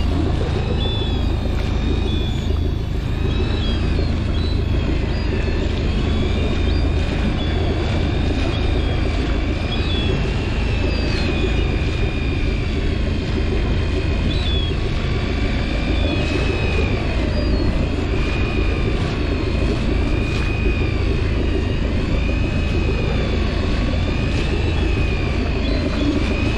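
Boat engine running steadily: a continuous low rumble, with a thin high whine that wavers slowly up and down.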